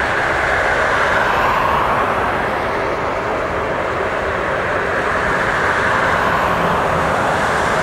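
Airbus A320's twin IAE V2500 turbofan engines at takeoff power as the airliner climbs out, a loud, steady jet noise with a low rumble beneath.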